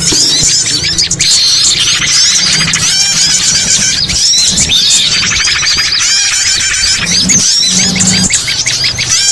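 Bird-trapping lure recording: many small songbirds chirping and twittering over one another in a dense, loud, unbroken tangle of high squeaky calls. A low hum comes and goes underneath.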